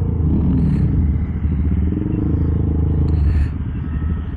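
Honda Monkey 125's single-cylinder engine running at low speed, its revs rising and falling with the throttle as the bike creeps along. It drops to a lower, quieter note a little past three seconds in.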